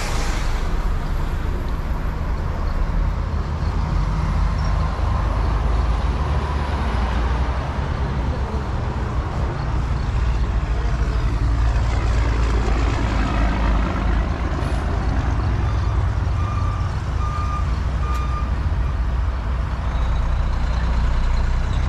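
Heavy truck engine running steadily with a deep, continuous rumble. Three short beeps come about three-quarters of the way through.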